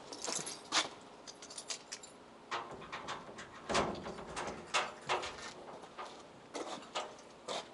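Excavator cab door being unlocked and opened: a run of separate clicks and knocks, the loudest about halfway through.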